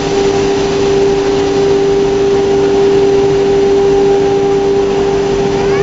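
CNC router spindle running with a steady high whine over an even hiss while it machines a board.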